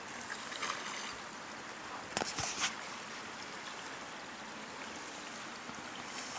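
Steady rush of flowing river water, with a short cluster of sharp clicks a little over two seconds in.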